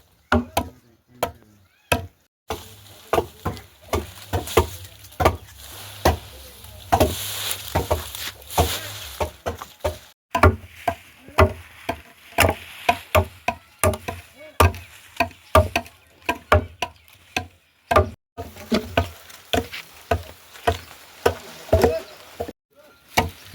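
Repeated chopping blows on a wooden surface, irregular strokes a few per second with brief pauses.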